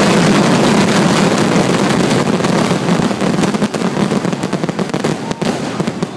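Fireworks finale barrage: many shells bursting at once, their reports and crackling stars running together into a continuous din. It thins to separate pops and crackles over the last couple of seconds.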